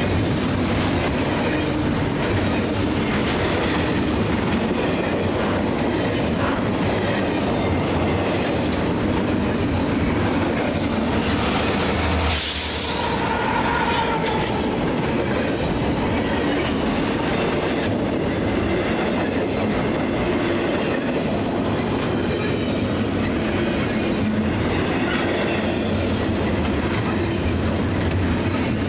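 Double-stack container train's well cars rolling past: a steady rumble of steel wheels on rail with clickety-clack over the joints. About twelve seconds in there is one loud bang, followed by a brief wheel squeal.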